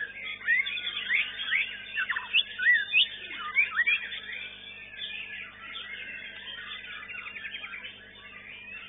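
White-rumped shamas (murai batu) singing in competition, several songs overlapping as fast whistled notes that sweep up and down. The singing is loudest in the first four seconds, and a rapid rattling trill comes about seven seconds in.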